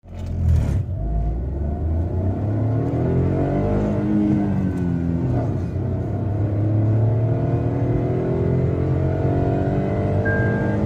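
Tata Altroz 1.2-litre three-cylinder petrol engine accelerating hard through the gears. The engine note rises, drops at a gear change about four seconds in, then climbs more slowly again. A short beep sounds near the end.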